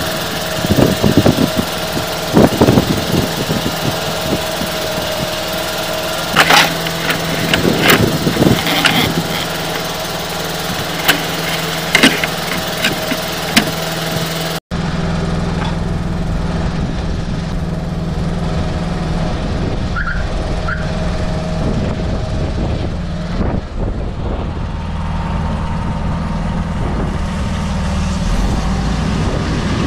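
An engine running steadily, with scattered knocks and clatters over it in the first half. After a sudden break about halfway, a steadier, heavier low engine hum.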